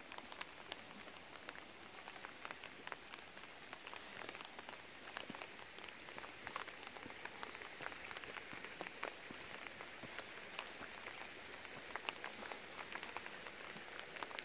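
Light, gentle rain falling: a steady soft hiss with many small sharp ticks of single drops landing.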